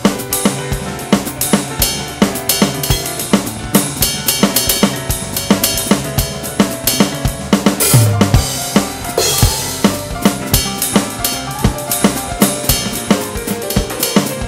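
Electronic drum kit played in a busy rock groove of kick, snare, hi-hat and cymbal crashes, over a recorded song with sustained pitched instruments. A heavy low hit lands about halfway through, followed by a cymbal crash.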